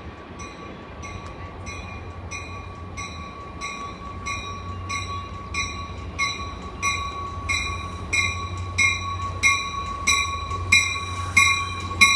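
Caltrain commuter train's bell ringing in even strikes, a little under two a second, growing louder as the train draws into the station, over the train's low rumble.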